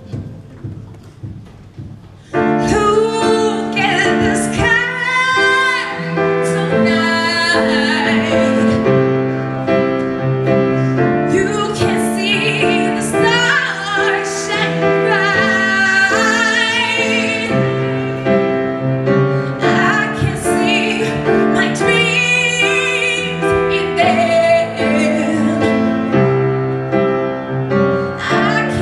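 A woman singing live into a handheld microphone over keyboard accompaniment, with long held notes that waver in vibrato. The first two seconds are soft, then the full accompaniment comes in and the music becomes much louder.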